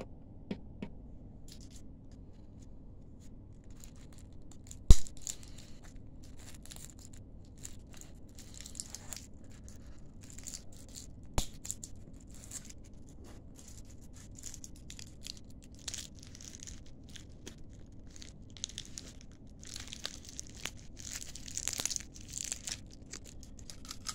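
Handling noise: faint scattered rustling and crackling, with a sharp click about five seconds in and a smaller one near eleven seconds. The crackling grows busier near the end.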